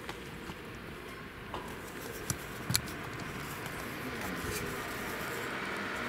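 A Mitsubishi Minicab kei van's engine approaching up a slope, growing steadily louder, with a shifting pitch in the second half. Two sharp clicks stand out about two and three seconds in.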